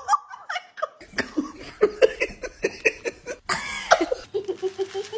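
A person laughing in quick repeated bursts, about three or four a second, for a couple of seconds. This is followed by a louder short outburst and a steady held vocal tone near the end.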